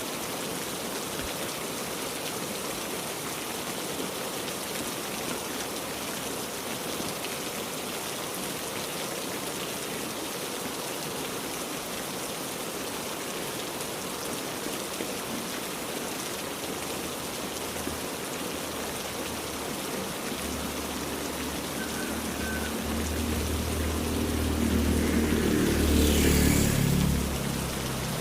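Heavy rain falling steadily. About two-thirds of the way through, a low rumble swells up, peaks near the end and quickly fades.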